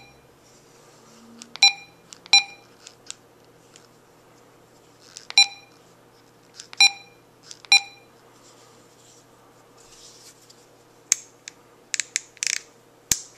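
Baofeng UV-3R handheld radio giving short, high key beeps as its buttons are pressed: six single beeps at uneven intervals. Near the end come a few sharp clicks and short rustles of the radio being handled.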